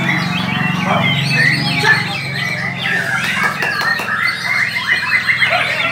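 Many caged songbirds singing at once, a dense jumble of chirps, trills and whistles, over the low murmur of a crowd's voices.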